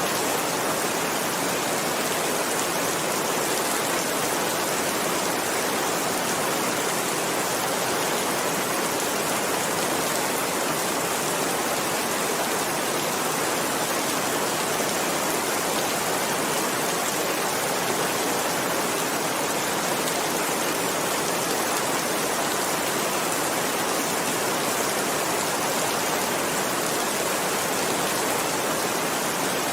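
Heavy rain falling steadily: an even, unbroken hiss with no single drops or thunder standing out.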